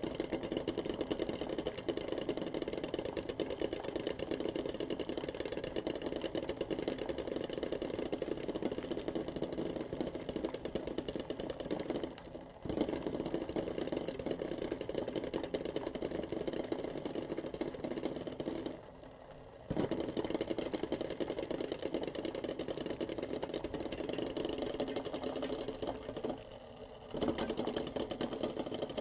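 Eggs boiling in a pot, knocking and rattling rapidly against the pot as the water bubbles. The rattle stops briefly three times.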